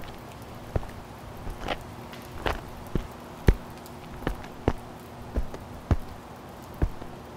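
Slow footsteps on a gritty brick-paved floor, one to two steps a second, over a faint steady low hum.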